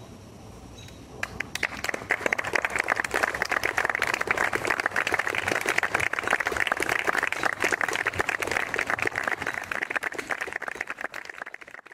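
Audience applauding: dense clapping that starts about a second in and dies away near the end.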